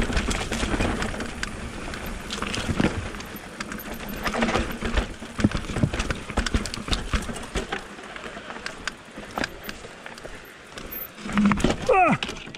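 Mountain bike rattling and knocking over a rough, rocky trail, with tyres crunching on loose ground and many irregular clicks and knocks. Near the end comes a brief pitched call that rises and falls.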